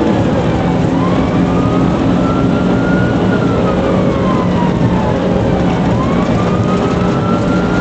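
Police car siren on a slow wail, its pitch rising and falling about every five seconds, over the steady engine and road noise of a squad car in pursuit.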